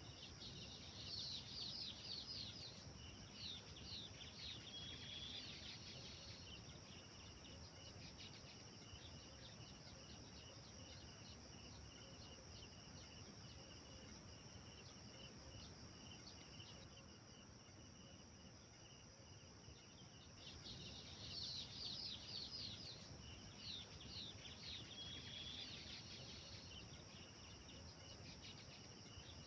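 Faint songbird singing: a quick run of sweeping notes ending on a short held note, heard twice, about twenty seconds apart. A steady chirring of insects runs underneath.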